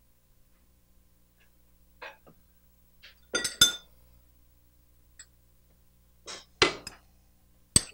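Scattered clinks and knocks of kitchen utensils against pans and dishes. The loudest is a pair of ringing clinks about halfway through.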